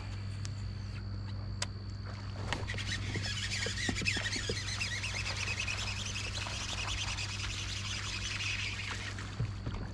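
Birds chirping in a dense run of quick, high notes for about six seconds, starting a few seconds in, over a steady low hum.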